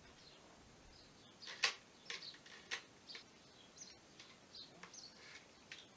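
Scattered light clicks and knocks of tools and timber being handled on a workbench, the sharpest a little under two seconds in, with small birds chirping faintly in between.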